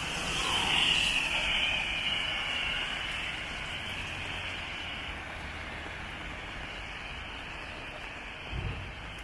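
Steady rain hiss with tyres swishing on the wet road, loudest about a second in and then easing off; a dull thump near the end.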